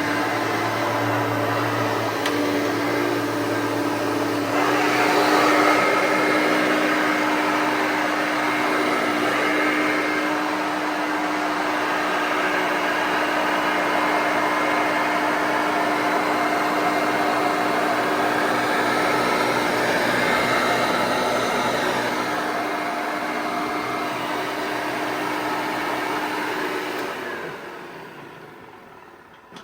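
1989 Hoover Elite 5.2 upright vacuum cleaner with its 5.2 motor running steadily with a hum, getting louder about four and a half seconds in. Near the end it is switched off and the motor winds down to a stop.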